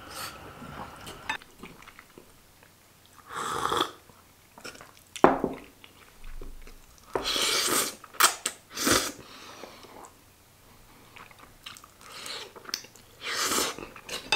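A person slurping thick udon noodles and chewing them: several short noisy slurps, the longest about seven seconds in, with quieter chewing between.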